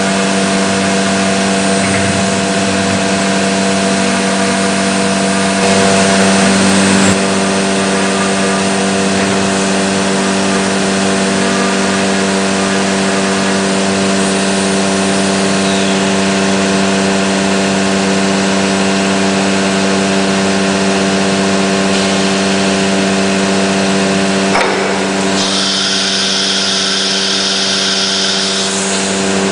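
SHMS1828D CNC router running steadily while cutting MDF: a held spindle hum with several steady tones over the noise of cutting. A higher whine joins for a few seconds near the end.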